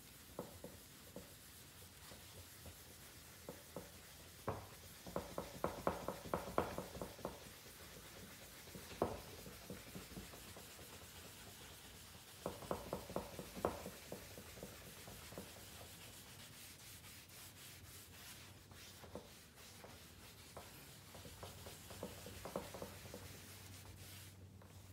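Polishing compound being rubbed by hand over a hazy plastic headlight lens with an applicator, a faint scratchy rubbing. It comes in three brisk spells of quick back-and-forth scrubbing strokes: about five seconds in, about halfway, and near the end. This is the polishing stage of restoring a weathered headlight lens.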